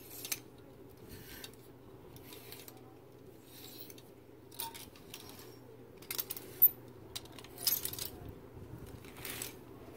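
Clear plastic clothes hangers clacking and sliding along a metal clothes rail as garments are pushed aside one by one: irregular sharp clicks and short scrapes, the loudest about two-thirds of the way through.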